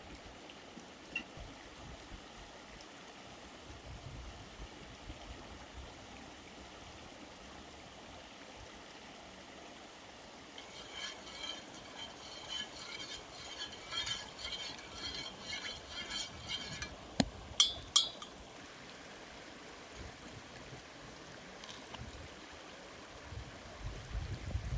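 Light clinking of glassware over a steady flowing-water sound. About eleven seconds in, a rapid run of small clinks goes on for about seven seconds and ends in three sharp, loud clinks.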